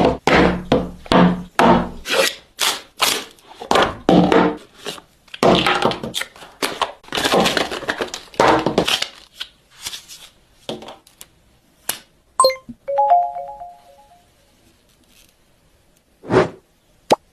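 Packaging of a wireless-earbuds set being handled and opened: a quick run of knocks, clicks and thunks, thinning out after about nine seconds. A few short electronic beeps come about thirteen seconds in, then a few single clicks near the end.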